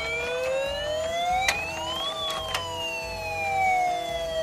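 Toy fire engine's electronic siren sound effect wailing through its small speaker: the pitch climbs for about two seconds, then falls more slowly, over a steady electronic tone. Two sharp clicks come midway.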